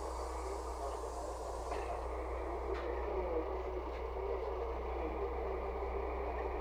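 Steady cabin noise inside a LiAZ 5292.67 low-floor city bus: an even hum from the engine and running gear, with a faint rattle or click now and then.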